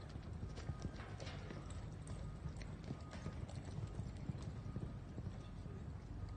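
Hoofbeats of an American Quarter Horse gelding galloping a barrel pattern on soft arena dirt, an uneven patter of strikes over a steady low rumble.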